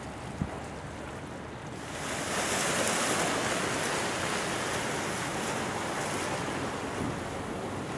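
Water rushing and splashing along the hull of a large ship passing close by, with wind. It swells louder and hissier about two seconds in.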